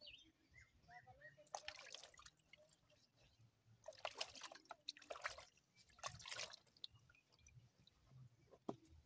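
Faint splashing and trickling of water in a plastic basin as a hand scoops water over bare feet and rubs them, in four short bursts.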